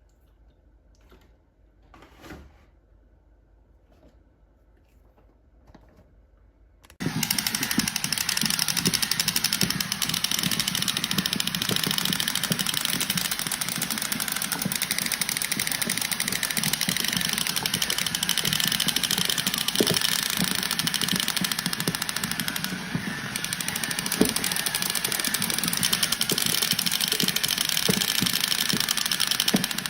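A few faint clicks, then about seven seconds in a loud, steady, rattling mechanical noise starts abruptly and keeps going.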